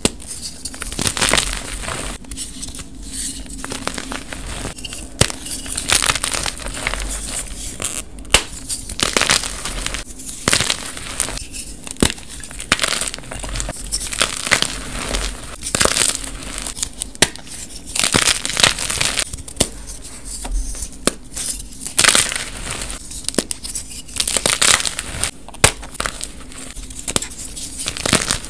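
Blocks of dyed gym chalk being snapped and crushed between the fingers, crumbling into powder with dense, irregular crunching and sharp snaps.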